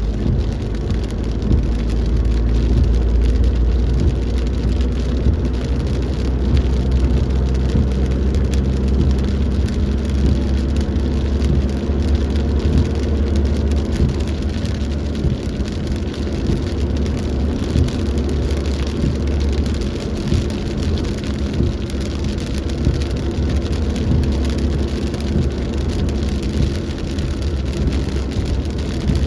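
Heavy rain falling in a storm, a steady dense patter with a strong low rumble underneath.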